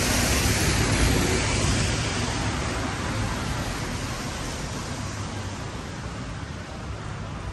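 A double-decker bus passing close by on a wet road, its engine hum and tyre noise loudest at first and fading steadily as it draws away, over general street traffic.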